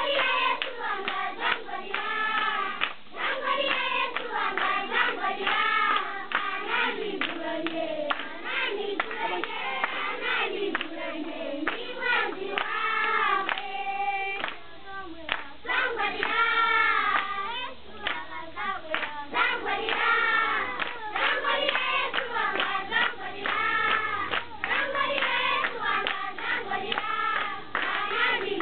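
A large group of children singing together in unison while clapping their hands in rhythm.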